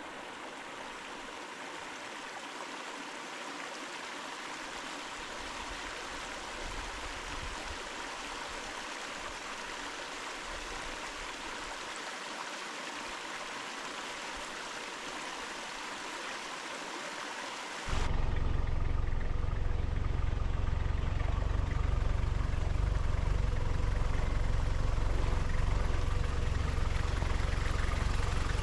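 Steady rush of flowing stream water. About two-thirds of the way through it cuts abruptly to the louder, steady low rumble of a car driving, heard from inside.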